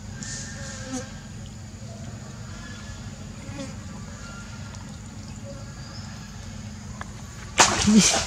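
Steady buzzing drone of flying insects. About seven and a half seconds in, a loud burst of rustling noise cuts in for under a second.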